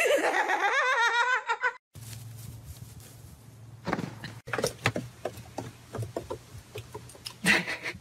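A person bursting into high-pitched laughter for about two seconds, the pitch wobbling rapidly up and down. It cuts off at a short silence, and a quieter low hum with scattered clicks and knocks follows.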